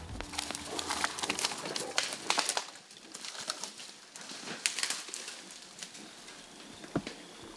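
Forest ambience: a bird calling, with scattered sharp clicks and rustles, densest in the first few seconds and with one sharper click near the end.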